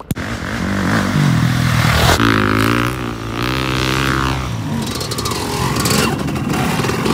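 Motorcycle engine running and revving, its pitch climbing and then rising and falling with the throttle.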